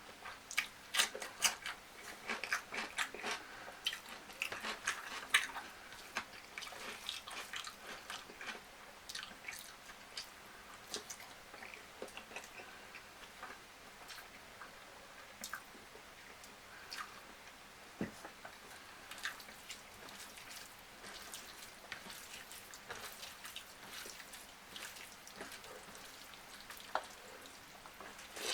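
Close-up eating sounds: wet chewing and smacking with many short clicks of the mouth, thick for the first several seconds, then sparser.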